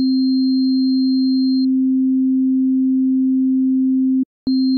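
Synthesized sine waves in FL Studio: a loud, steady low sine tone with a much higher, fainter sine tone layered on top. The two are far enough apart in frequency that they don't cancel; the high tone just adds in. About a second and a half in the high tone drops out, leaving the low tone alone; near the end the sound cuts off for a moment and resumes with both tones.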